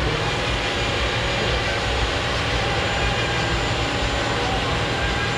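Heavy diesel engine of a Scania truck held at steady high revs during a burnout, a loud unbroken roar.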